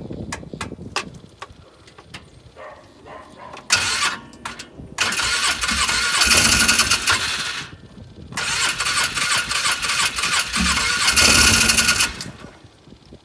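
Polaris Ranger 500 EFI engine being cranked over by its starter in two long attempts of about three seconds each, after a few light clicks and a short first burst; the engine doesn't catch, a no-start condition.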